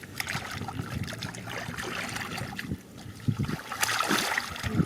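Water splashing and trickling, an uneven wash with small clicks, as hands work in a shallow muddy pool.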